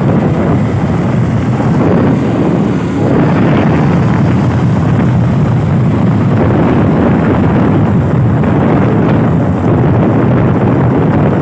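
Steady wind rushing over a helmet-mounted phone microphone on a Bajaj Pulsar 150 motorcycle riding at speed, with the single-cylinder engine running beneath it.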